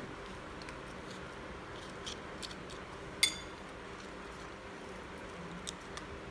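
Quiet kitchen handling with a few light taps, and one sharp ringing clink about three seconds in, like a metal utensil striking a dish.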